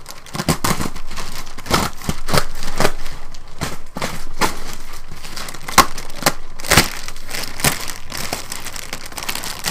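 Clear plastic packaging bag crinkling and crackling as it is cut with a knife and pulled apart by hand, with a few sharper snaps about six to seven seconds in.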